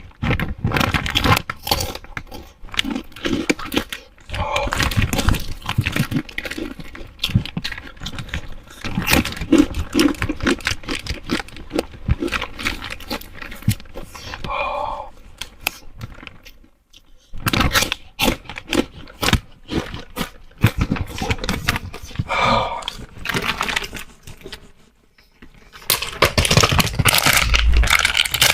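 Plastic snack wrappers crinkling and being torn open in close-up, a dense crackle of handling clicks that stops briefly twice, about 17 and 25 seconds in.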